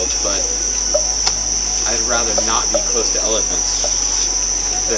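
Loud, steady, high-pitched drone of jungle insects, with fainter wavering sounds lower down.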